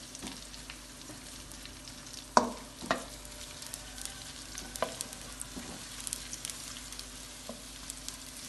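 Sliced onions sizzling and crackling in hot oil as a wooden spatula stirs them around the pan. A few sharp knocks of the spatula against the pan, the loudest two about two and a half and three seconds in.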